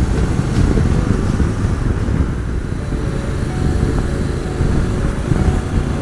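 Riding noise from a Honda NC750X motorcycle on the move: a steady low rumble of wind rush on the microphone mixed with the engine running at road speed.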